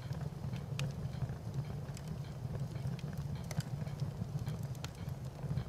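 Wood fire crackling: irregular sharp pops and snaps over a steady low rumble of the flames.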